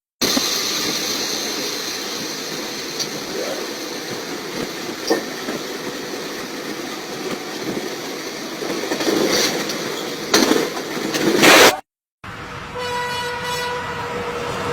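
Train running on the rails: a steady rush of rail noise that surges louder twice near the end and breaks off suddenly. After a short gap, more train noise follows with a steady horn-like tone over it.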